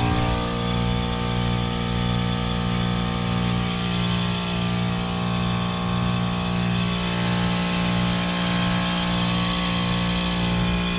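Trane Odyssey heat pump running through its defrost cycle: a steady compressor hum under a continuous hiss. A couple of the higher tones in the hum drop out right at the start.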